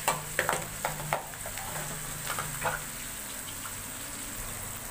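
Metal spoon scraping and clinking against a metal pan as a tomato-and-onion chutney is stirred, over a steady sizzle of frying. The clinks come several in the first second, twice more near the middle, then only the sizzle goes on.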